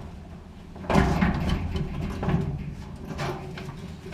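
Handling noise from work inside a dryer cabinet: a sharp knock about a second in, then a run of lighter knocks and scrapes.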